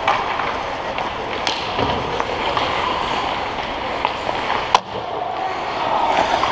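Ice hockey play around the net: skates scraping on the ice and sticks clattering, with one sharp crack of a stick or puck strike about three-quarters of the way in.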